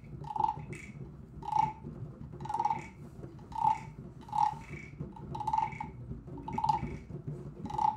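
Hand drums tapped sparsely, about one stroke a second, each stroke with a short ringing tone, over a low steady background noise: scattered single raindrops in a rainstorm played on drums.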